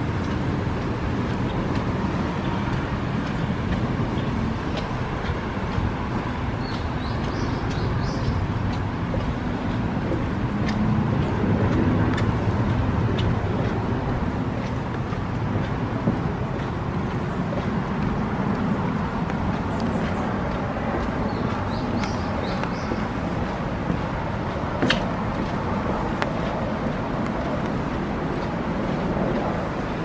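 Outdoor forest-path ambience: a steady low rumble, with a few faint bird chirps about a quarter of the way in and again about two-thirds through, and a sharp click near the end.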